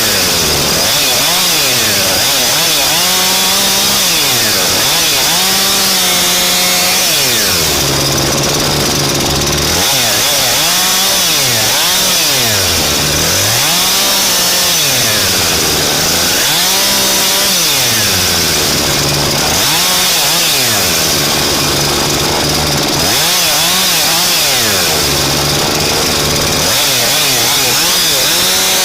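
Husqvarna two-stroke chainsaw running loud and close, its engine pitch climbing and falling again and again, about every two seconds, as the throttle is opened and released.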